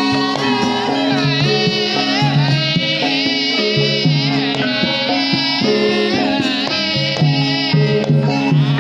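Javanese gamelan ensemble playing Lengger-style music: metallophones holding and changing tones over kendang drum strokes, with a sinden singing a wavering, ornamented vocal line above.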